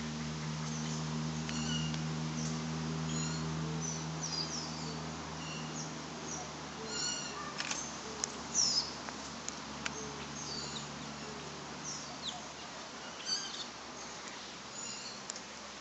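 Small birds chirping, with many short high calls scattered throughout and a sharper call near the middle. A low steady hum underneath fades out partway through.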